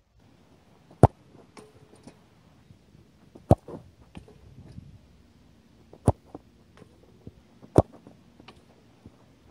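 A football being kicked hard: four loud, sharp strikes a few seconds apart, with fainter knocks between them.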